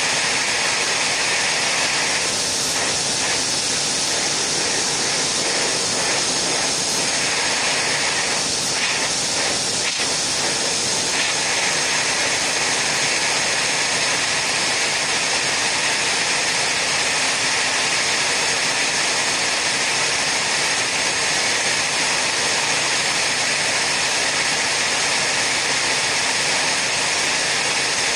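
Steady rushing hiss of an air jet, the blown air that keeps a marble floating in a marble machine. For a few seconds in the first third it flutters in a quick, even pulse.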